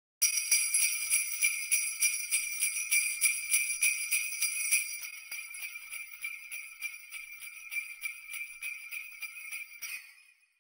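Sleigh bells jingling, shaken in a steady even rhythm. They are louder for the first half, go softer about halfway through and stop just before the end.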